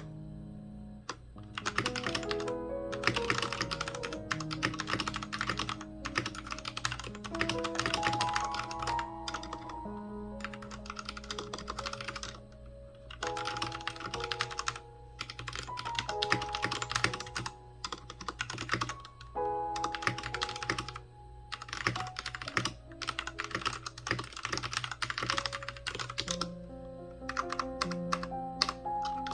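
Typing on a Royal Kludge RK61 mechanical keyboard: rapid key clicks in runs of a few seconds with short pauses between them.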